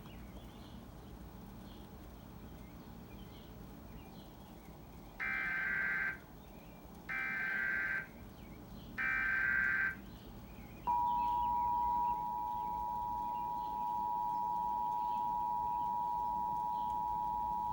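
Emergency Alert System broadcast: three short bursts of the SAME digital header data, each about a second long, then the steady two-tone EAS attention signal starting about 11 seconds in. The sequence opens a National Weather Service tornado warning.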